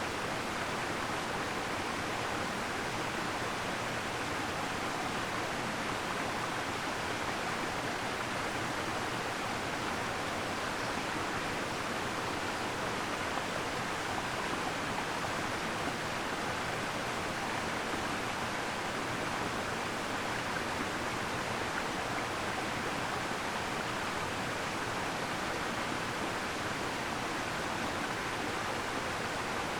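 A waterfall's steady, even rush of falling water, with little deep rumble.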